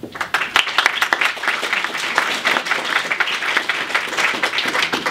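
Audience applauding: many people clapping at once, starting suddenly and fading out near the end.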